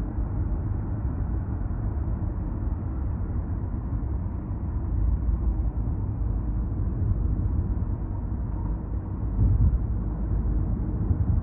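Steady low road rumble of a car driving at expressway speed, heard from inside the cabin: tyre and engine noise with no distinct tones, briefly louder about nine and a half seconds in.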